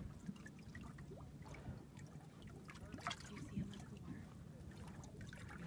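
Water lapping and trickling against the side of a small boat, with a steady low hum underneath and a brief louder rush of water about three seconds in.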